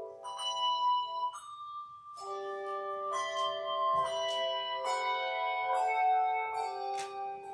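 Handbell choir ringing a piece: struck handbells sound in chords that ring on and overlap, thinning briefly to one held note about a second and a half in before the next chord is struck.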